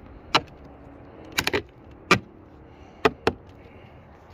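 Sharp plastic clicks and snaps as replacement mirror glass is pressed into a car's door mirror housing, its backing prongs clipping into place: about seven clicks, with a quick run of three about a second and a half in.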